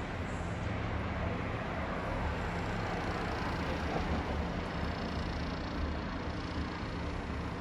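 Steady street traffic noise: passing cars and a low rumble of engines.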